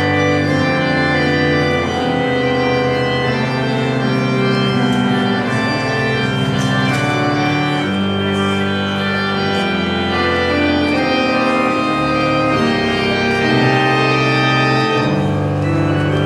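Two-manual church organ playing full held chords over sustained bass notes that change every second or two.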